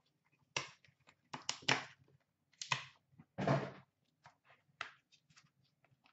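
Hands handling and opening a thick cardboard trading-card pack box and sliding the cards out. It makes a string of short scrapes, taps and clicks, the longest a scrape with a dull thump about three and a half seconds in.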